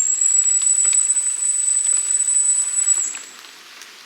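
A very high-pitched whistle blown once: one long steady note lasting about three seconds, which cuts off about three seconds in. A faint patter of rain goes on underneath.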